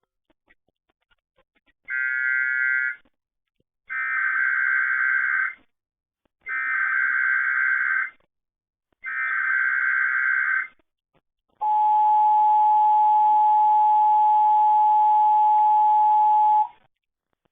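Emergency Alert System weekly test tones as broadcast over the radio. First come four short buzzy bursts of SAME digital header data, then about five seconds of the steady two-tone EAS attention signal, which cuts off abruptly.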